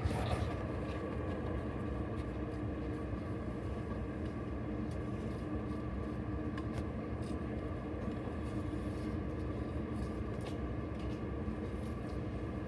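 A steady mechanical hum with several constant tones, like a running machine or ventilation, with a few faint light ticks now and then.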